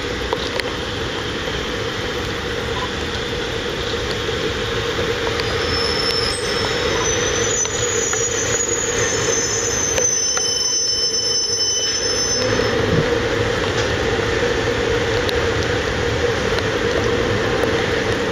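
Freight train running past with a steady rumble of wheels on rails. From about five seconds in to about twelve seconds in, the wheels squeal at several high pitches at once.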